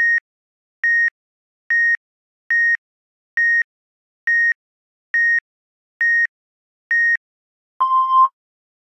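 Workout-timer countdown beeps: nine short, high electronic beeps about a second apart, then one longer, lower beep near the end that signals the start of the exercise.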